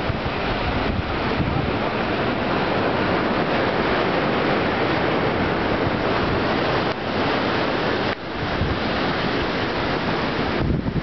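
Steady rush of ocean surf and choppy inlet water mixed with wind, the wind buffeting the microphone, dipping briefly twice near the middle.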